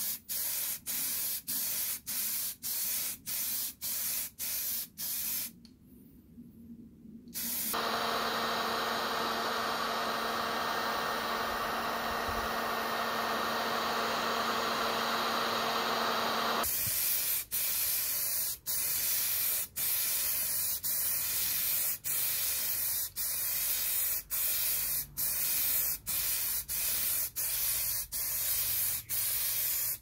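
Aerosol spray-paint can hissing in short repeated bursts as brackets are painted black. From about 8 to 17 seconds a heat gun runs steadily with a blowing hiss and a low hum, drying the paint. After that the quick spray bursts start again.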